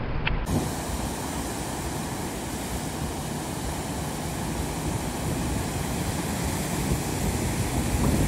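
Small surf breaking and washing up a sandy beach, with wind rumbling on the microphone.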